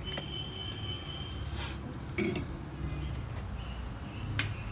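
A few light metallic clinks and taps of a soldering iron being lifted off an LED backlight strip and set back in its metal stand, over a steady low hum; the sharpest clink comes near the end.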